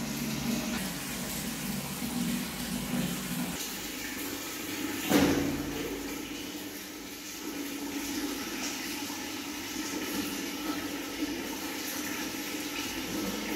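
Water running from a tap and sloshing in a plastic baby bath as a baby macaque moves about in it, with one louder splash about five seconds in as it scrambles out onto the rim. A low hum stops about three and a half seconds in.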